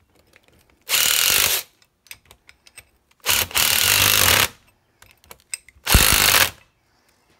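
Handheld cordless power tool, ratchet-type, running in three short bursts, the middle one the longest, as it snugs the nuts on the upper control arm bushings.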